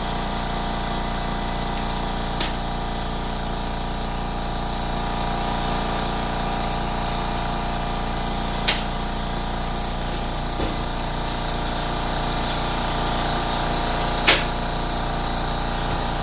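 Shop air compressor running with a steady hum of many tones, cutting off abruptly at the very end. Three sharp knocks stand out over it, at about two, nine and fourteen seconds in.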